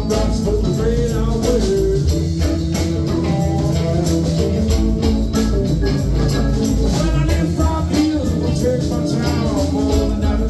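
Live rock band playing electric guitars, keyboard and drums at a steady beat, with a singer's voice over them.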